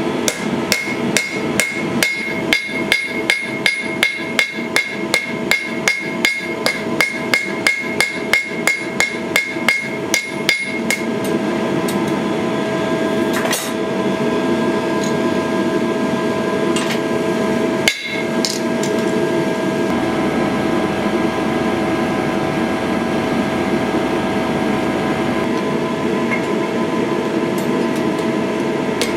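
Hand hammer striking a small metal strip on an anvil in a steady run of blows, about two to three a second, each with a ringing metallic note. After about eleven seconds the separate blows give way to a denser, steadier clatter with a few single louder strikes.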